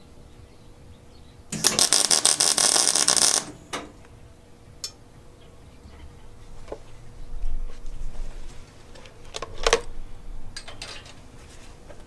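Stick-welding arc crackling for about two seconds as a tack weld is struck, joining the rebar post to the steel base plate. It is followed by a few sharp metal clicks and knocks.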